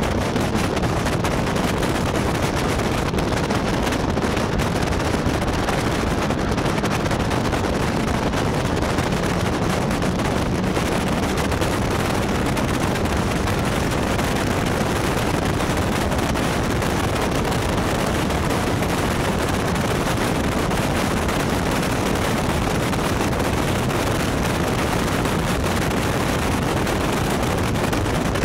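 Wind rushing over the microphone of a camera on an open Caterham Seven race car at speed, a steady loud hiss with the car's engine running underneath. A faint engine note comes through in the first half.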